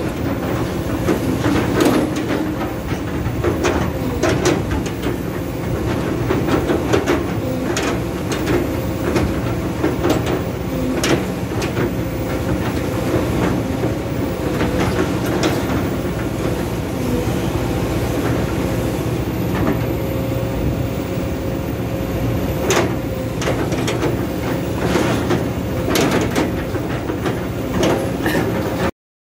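Kobelco SK200-8 hydraulic excavator running, its diesel engine going steadily under a constant tone while the arm and bucket are worked. Repeated sharp metallic clicks and clanks sound throughout.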